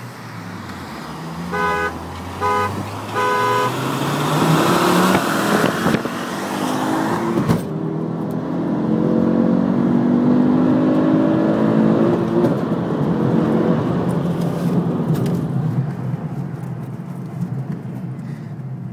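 A car horn toots three short times, then a Ford Focus's 2.5-litre turbocharged five-cylinder engine accelerates hard. Its pitch climbs steadily in each gear and drops back at the gear changes.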